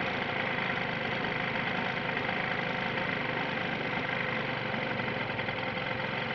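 An engine idling steadily, which its owner reports as idling low and making a strange noise.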